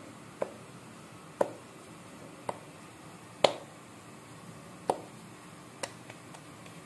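Hands slapping and patting a soft ball of paratha dough: about six sharp slaps, roughly one a second, the loudest near the middle.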